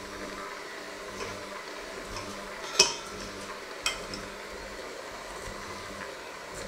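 Electric hand mixer running steadily, its beaters churning a crumbly dough in a stainless steel bowl. The beaters clack sharply against the metal bowl twice, about three and four seconds in.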